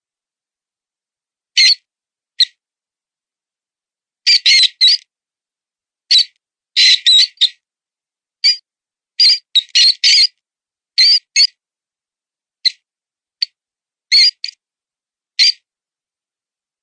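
High-pitched mouse squeaks, the wounded-mouse distress sound used as a predator call. Short squeaks come singly or in quick clusters of two to four, at irregular gaps with dead silence between.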